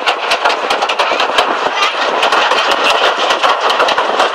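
Miniature railway train in motion: the carriage wheels clatter over the track in rapid, irregular clicks above a steady running noise, heard from aboard the carriage.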